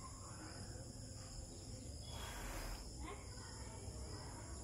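Steady high-pitched outdoor insect calls, with a brief rustling noise about two seconds in.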